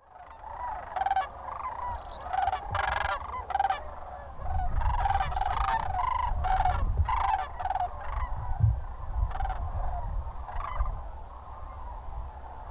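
A flock of sandhill cranes calling, many overlapping calls, thinning out over the last few seconds, with a low rumble underneath from about four seconds in.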